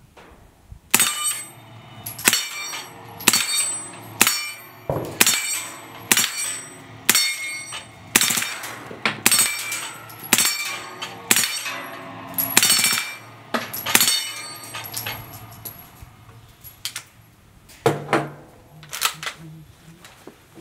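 Suppressed H&K MP5 submachine gun fired in deliberate single shots, about one a second, each shot followed by the ringing clang of a steel plate being hit on a plate rack. A couple of softer metallic clatters follow near the end.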